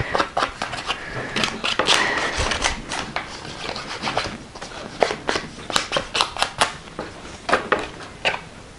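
Irregular clicks, taps and scratchy rustling from a small plastic-cased ink pad being handled and knocked against paper cut-outs on a tabletop.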